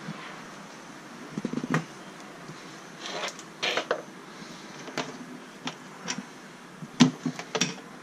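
Irregular light knocks and clicks with brief rustles from someone moving about and handling things. The loudest is a sharp knock about seven seconds in.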